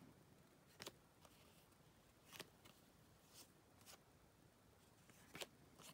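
Near silence, broken by a few faint, short ticks of trading cards being handled.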